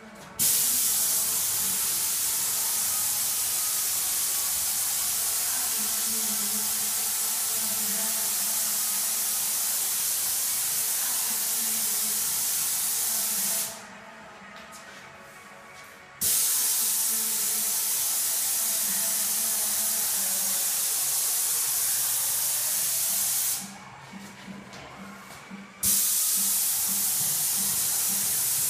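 Airless paint spray gun, fed by a Graco Ultra Max II 695 pump, hissing steadily as it atomises paint. There are three long spray passes, and the hiss cuts off twice for about two seconds when the trigger is released.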